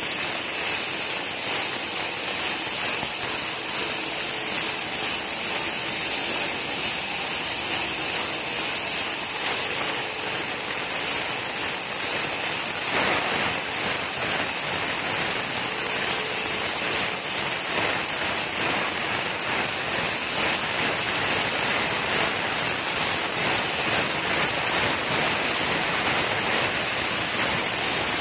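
YX-CXP1 automatic flip-type glass bottle washing machine running, with a steady hiss of spray from its water and air washing jets.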